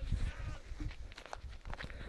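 Footsteps on a gravelly dirt path, with low wind rumble on the microphone.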